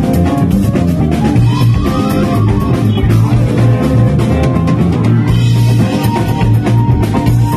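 Live funk band playing loud: electric guitar, electric bass, keyboard and drum kit, with a rising glide about two seconds in.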